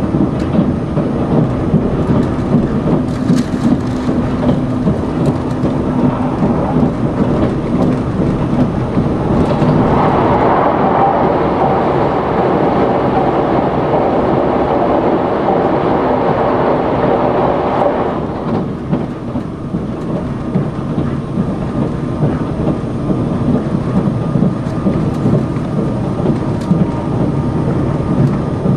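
Cabin running noise of a Sonic tilting limited express train at speed: a steady rumble of wheels on rail. About ten seconds in it grows louder and fuller for roughly eight seconds, then settles back.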